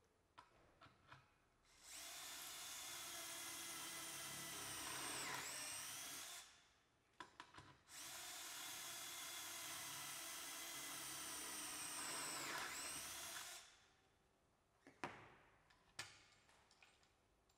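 Cordless drill boring two holes through the sleeves of a drilling jig into a furniture front panel, two runs of about four and five seconds whose pitch dips near the end of each. A couple of light knocks near the end as the jig is lifted off the panel.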